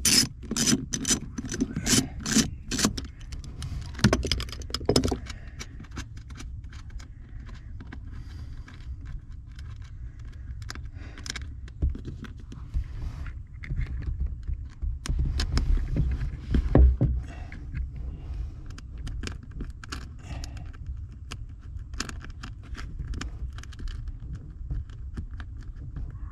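Ratchet wrench with a 3/8 socket clicking in quick, even strokes as a nut is undone. Scattered metallic clinks and scrapes follow as tools and hardware are handled.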